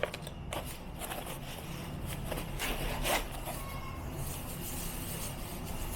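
Packaging being handled and slid apart, with irregular rustling and short scraping strokes.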